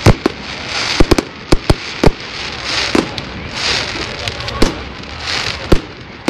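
Fireworks display: a string of about nine sharp bangs at irregular spacing, with hissing, crackling swells between them.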